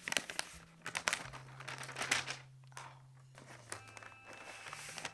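Paper protective sheet being handled and peeled off a new laptop, with irregular crinkling rustles and a few sharper crackles.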